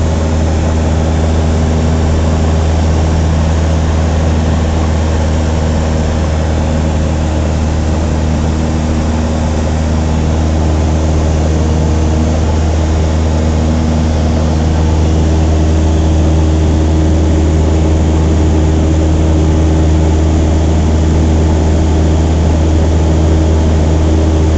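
Cessna 150's four-cylinder Continental O-200 engine and propeller droning steadily, heard from inside the cockpit. It grows slightly louder about two-thirds of the way through.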